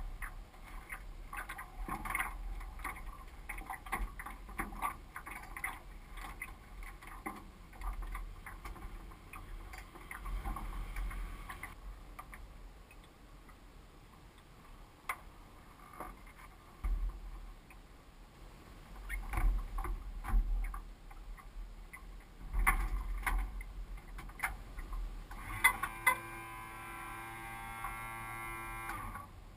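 Knocks, clicks and rustles of a pilot settling into the open cockpit of a Great Lakes biplane and pulling on a leather flying helmet and headset, with low thumps against the microphone. Near the end a steady buzzing tone holds for about three seconds.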